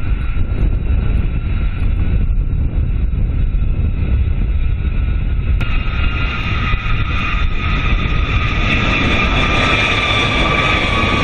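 B-52 bomber's eight jet engines rumbling loudly as the aircraft lands and rolls out on the runway. About halfway through the sound turns brighter, with a steady high engine whine of several tones that sinks slightly near the end as the engines wind down.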